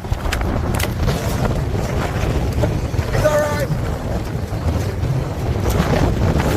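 Strong wind buffeting the microphone, a steady low rumbling roar. A short voice call cuts through briefly about three seconds in.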